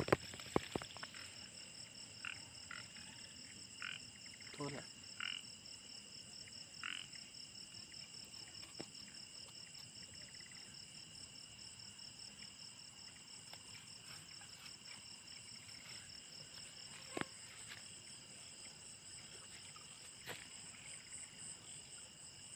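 Night chorus of crickets trilling steadily at several high pitches, with a handful of short frog calls in the first seven seconds. A few faint clicks and rustles sound in the first second and once more later.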